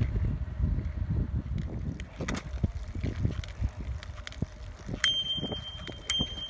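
Bicycle bell rung twice, about a second apart, near the end, each ring leaving a clear ringing tone. Underneath runs the rumble of tyres rolling on pavement, with wind on the microphone of a moving recumbent trike.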